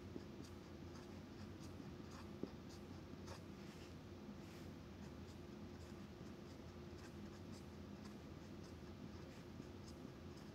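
Dry-erase marker writing on a board in quick short strokes, faint, over a low steady background hum.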